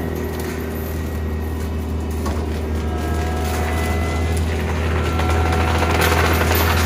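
CAT 299D3 compact track loader's diesel engine running under load, driving a CIMAF drum mulcher: a steady low drone with whining tones that drift in pitch. It grows louder and rougher about six seconds in as the mulcher head pushes into the brush.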